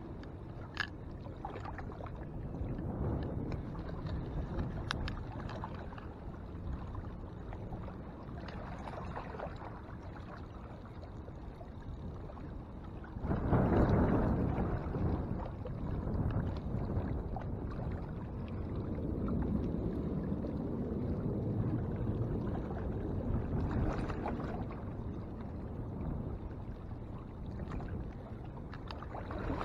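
Shoreline wind and water noise: a low, steady rush of wind on the microphone with water lapping at the rocks, swelling louder for a couple of seconds about halfway through. A few faint clicks sound now and then.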